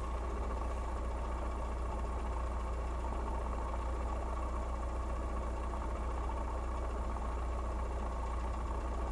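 Lada Kalina 16-valve engine idling steadily, with an occasional dull tapping from the hydraulic valve lifters that rises and fades away. The owner takes it for lifters that have not yet fully pumped up with oil.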